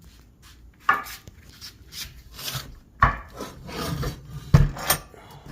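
Handling noise of a portable band saw being fitted to its steel stand: a few knocks and scraping rubs of metal parts, the loudest knocks about one, three and four and a half seconds in.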